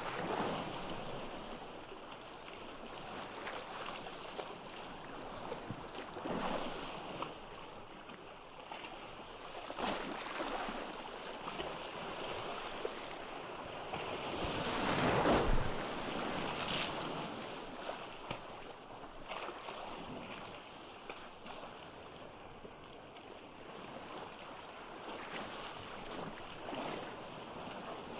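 Sea waves breaking and washing up on a beach, swelling every few seconds, with the largest wave about halfway through.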